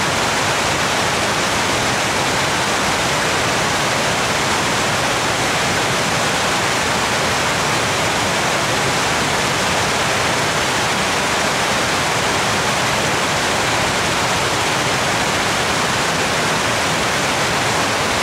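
Waterfall in heavy spate after prolonged rain: a loud, steady rush of falling water.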